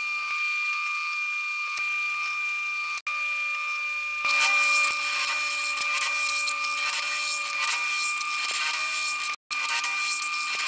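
Mill-drill spindle running with a steady whine as a twist drill cuts pilot holes in square steel tube. About four seconds in the cutting gets louder and rougher, and the sound drops out twice for a moment.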